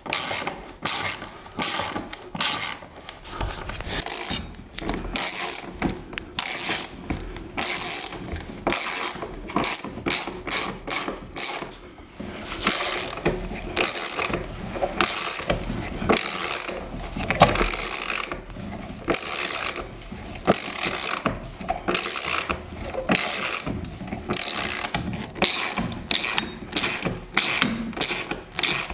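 Hand socket ratchet clicking in repeated strokes as bolts are driven through a TV wall mount's wall plate into the wall, with short pauses between runs.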